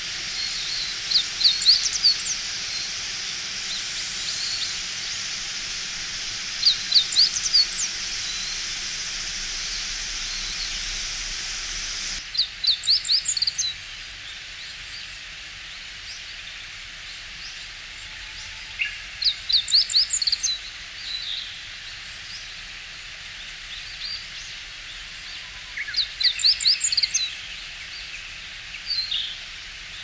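Male meadow bunting singing: short, fast phrases of high notes repeated about every six seconds, in a distinctive rhythm. A steady high hiss lies under the first songs and drops away about twelve seconds in.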